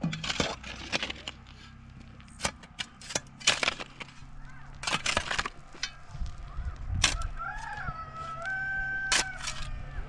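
Wood cracking and snapping in a series of sharp, irregular cracks, as branches are broken for building. A rooster crows once, a drawn-out call, from about seven seconds in.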